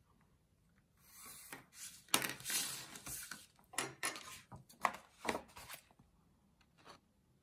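Handling sounds at a wooden table: a sheet of folded paper rustling, with a few light knocks as a ruler and pencil are set down, in a string of short bursts.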